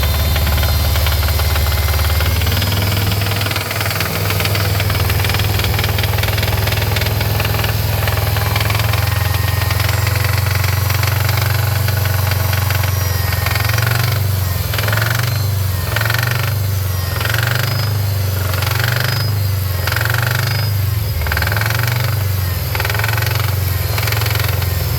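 Subaru STI's turbocharged 2.5-litre flat-four engine running at idle just after start, with a metallic knocking noise. The noise appeared after the secondary air pump system was removed and the ports were blocked off. From about halfway, the sound pulses roughly once a second.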